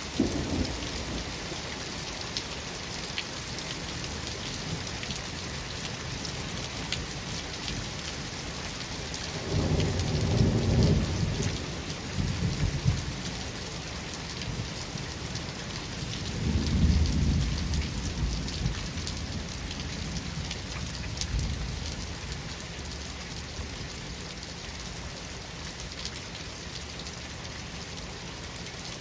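Steady rain falling, with rolling thunder: a sharp clap right at the start, a long low rumble about ten seconds in, and another about seventeen seconds in, with fainter rumbles after.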